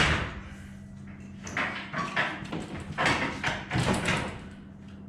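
Metal knocking, scraping and clanking as the garage door's torsion spring tube is lifted and fitted back onto its mounting: one sharp knock at the start, then a run of irregular scrapes and clanks that stop near the end.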